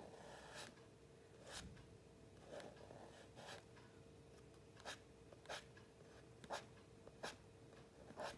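Charcoal stick scratching on drawing paper in short, separate strokes, roughly one a second and unevenly spaced: little chisel sounds of the charcoal being worked into the page.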